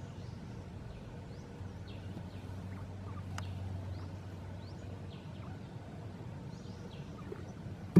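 Faint, scattered short bird chirps over a steady low outdoor rumble, with a single click about three seconds in.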